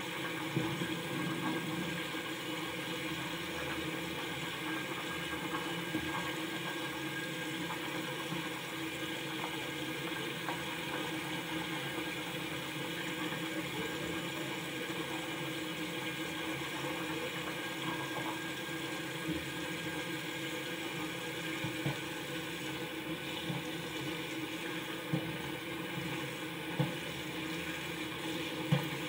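Steady rush of running water with a low hum, broken by a few light knocks near the end.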